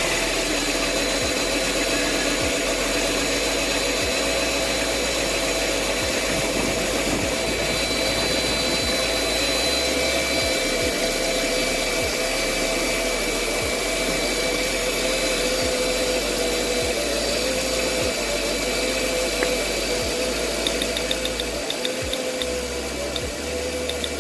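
Mercedes-Benz CLS500 V8 engine idling unevenly, with faint single ticks every second or so. It is misfiring on cylinders 1 and 5 from a failed ignition coil.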